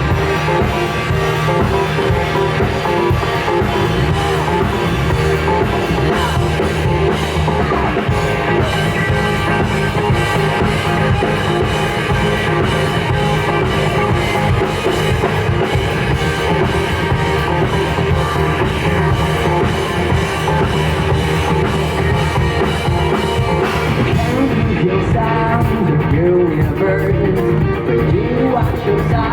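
Live rock band playing a song's intro on electric guitars, bass and drum kit, heard loud over outdoor concert speakers. About five seconds from the end the high cymbal wash drops away, leaving the guitars and bass more exposed.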